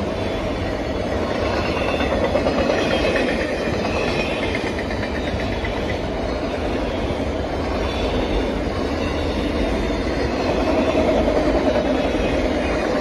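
Canadian Pacific freight train of autorack cars rolling past: steel wheels running on the rails in a steady, continuous din, swelling a little louder a couple of seconds in and again near the end.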